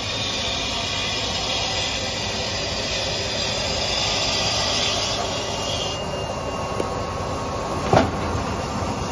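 Bindery machinery, including an automatic rigid box wrapping and folding machine, running with a steady mechanical clatter and hiss. A single sharp clack comes about eight seconds in.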